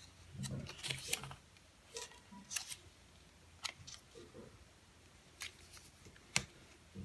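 A small hardback book handled by hand as it is closed and turned over: light paper rustles and crisp clicks of the pages and cover, scattered throughout, with the sharpest click near the end.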